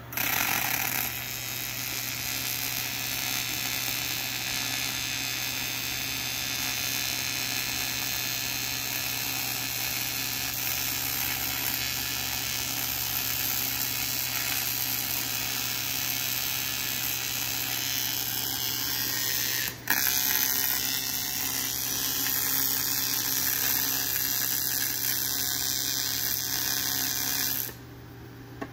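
TIG welding arc on aluminum exhaust pipe: a steady hiss that starts at once, breaks off for an instant about two-thirds of the way through, then resumes and stops shortly before the end.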